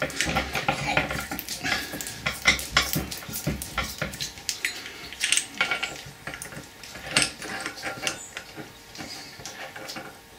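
Steel parts clinking and tapping as a bearing carrier, a bearing and a socket are set up between the soft jaws of a bench vise. The clicks come thick and fast for the first few seconds, then thin out to scattered taps.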